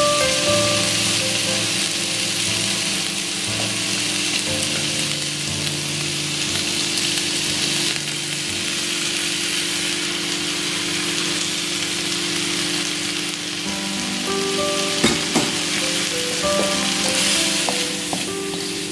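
Chicken pieces sizzling and frying in a steel wok, a steady hiss under background music. Two sharp knocks come about fifteen seconds in.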